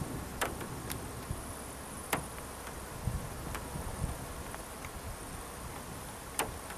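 Insects chirping in a high, wavering buzz, with wind rumbling low on the microphone and a few sharp clicks.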